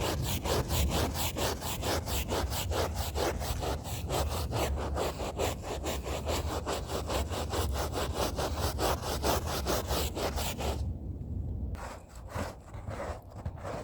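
Stiff hand scrub brush scrubbing a rug, fast back-and-forth strokes at about five a second. The scrubbing stops about eleven seconds in, leaving a few lighter, scattered strokes.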